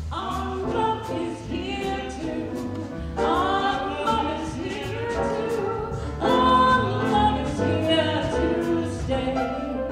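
A woman singing a jazz standard with grand piano and upright double bass accompaniment, holding long notes, the loudest about six seconds in.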